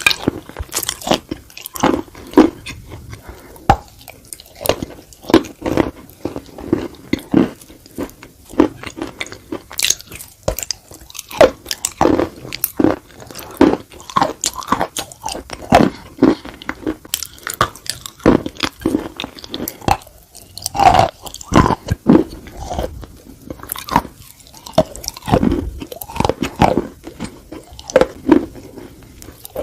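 Biting and chewing chunks of dry edible khawa clay, heard close: a run of sharp, irregular crunches.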